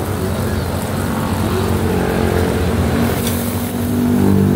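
Gas burner roaring under a sizzling pan of pork sisig, with a low hum that grows louder toward the end as flames flare up high around the pan; a brief sharp crackle a little after three seconds.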